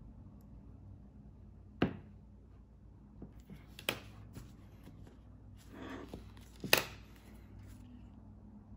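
Handling of a small snap-off utility knife and a tissue on a hard tabletop: three sharp clicks about two seconds apart, the last the loudest, with a brief rustle just before it.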